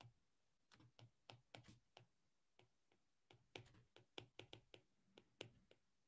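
Faint, irregular clicks and taps of a pen stylus writing on a tablet, a few strokes a second, thickening from about three and a half seconds in.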